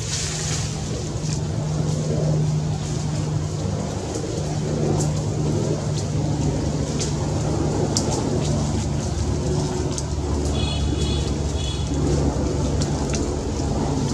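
Steady low mechanical rumble with a constant low hum, with faint scattered clicks and a brief high chirping about two-thirds of the way through.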